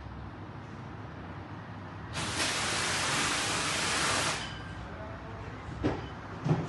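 A hiss of escaping gas that starts suddenly about two seconds in and stops after about two seconds, followed by two short knocks near the end.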